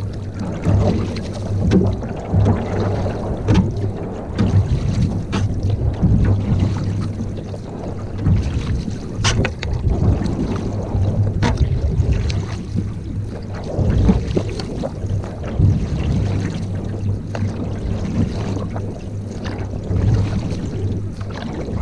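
Canoe on the water under paddle: continuous water noise with scattered short, sharp knocks, over a low rumble of wind on the microphone.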